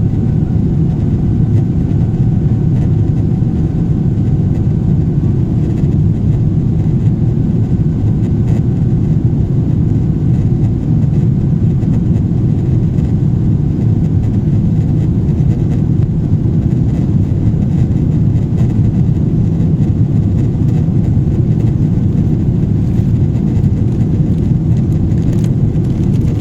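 Steady deep rumble of engine and airflow noise heard from inside a Boeing 777 airliner in flight, with a faint high whine that fades out in the first few seconds.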